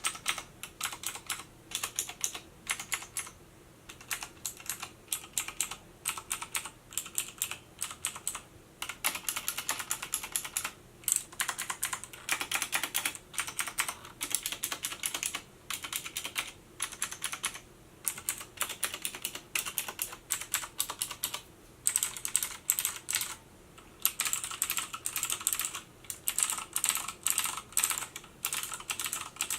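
Fast typing on a Thermaltake Level 20 RGB Titanium mechanical keyboard with clicky blue switches: dense runs of crisp keystroke clicks broken by brief pauses every few seconds.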